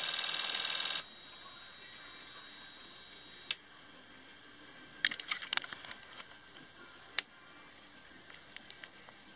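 Fuel injectors on a test bench pulsing into graduated cylinders, a steady high buzz that cuts off suddenly about a second in. After that come scattered sharp clicks and taps, with two single loud clicks and a quick cluster in the middle.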